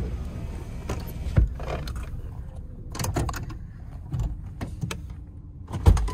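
A 2001 Ford Explorer Sport's V6 engine idling, a steady low rumble heard from inside the cabin. Several clicks and knocks from inside the car sound over it, and the sharpest knock comes near the end.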